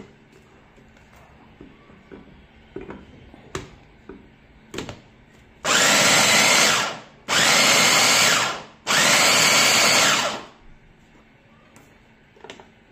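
Glen SA4043 Turbo electric mini chopper's motor running in three pulses of about a second and a half each, its twin blades chopping tomato chunks. Before that come a few light plastic clicks as the lid and motor unit are fitted.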